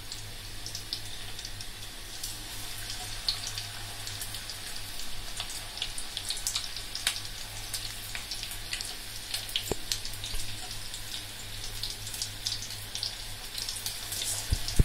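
Pakoras deep-frying in a pan of hot oil: a steady sizzle full of small crackles and pops, over a low steady hum. A single sharp knock comes near the end.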